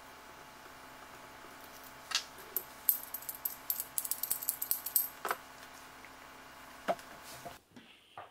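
Small metal turbocharger parts clinking and rattling as they are handled and set down on the workbench: a few single knocks and a busy run of light clinks in the middle.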